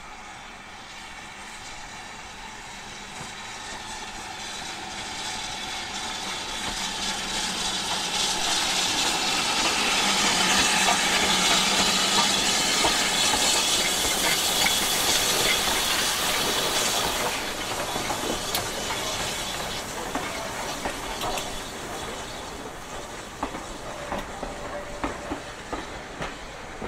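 BR Standard Class 4MT 2-6-4 tank locomotive passing close by, its steam hiss growing as it approaches and loudest from about ten to seventeen seconds in. Then its coaches roll past, the wheels clicking over the rail joints.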